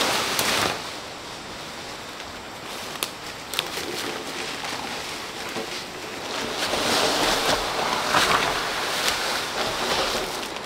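Rustling of dry leaves and forest undergrowth as people walk through leaf litter and ferns: a steady hiss with a few faint snaps and ticks, louder at the very start and again from about six and a half seconds until near the end.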